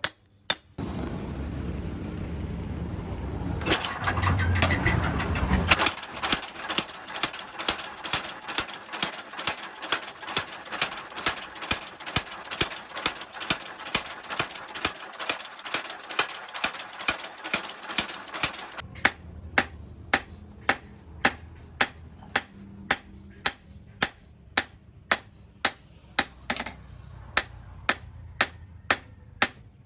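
Hammer blows on steel at an anvil in a steady rhythm of about two to three strikes a second, forging a chainsaw-blade steel into a blade. A low rumble runs under the first few seconds.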